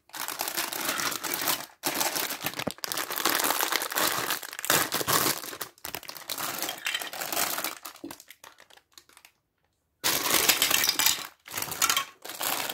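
Crinkling of a clear plastic parts bag from a LEGO Duplo set as it is handled and shaken. About two-thirds of the way through the sound fades and drops out completely for under a second, then the crinkling starts again.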